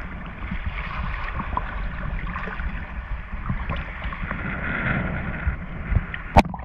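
Sea water sloshing and lapping around a GoPro held at water level, with wind buffeting the microphone. A single sharp knock near the end.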